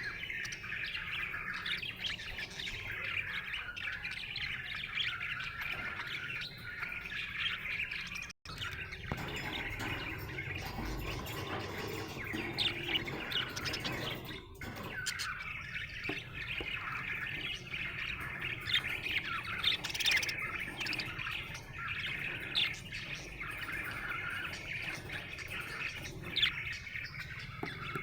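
Budgerigar chirping in a dense, unbroken stream of short high chirps, breaking off for an instant about eight seconds in.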